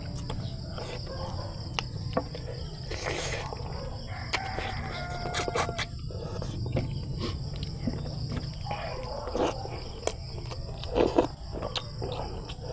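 Close eating sounds of a man eating chicken and rice by hand: chewing, lip smacks and finger sucking, heard as many short clicks, over a steady high insect drone. A brief pitched call comes a little before halfway through.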